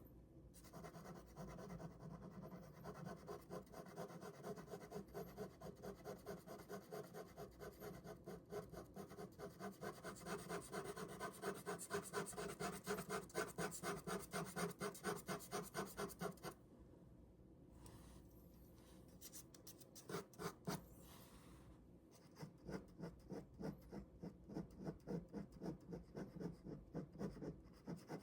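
Ballpoint pen drawing on paper: quick, even back-and-forth strokes. They stop for a few seconds about two-thirds of the way through, then start again.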